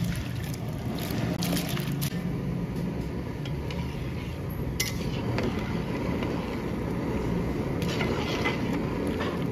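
Rice poured into a large steel pot of boiling water, then a metal spatula clinking and scraping against the pot as it is stirred, with several sharp clinks over a steady low rumble.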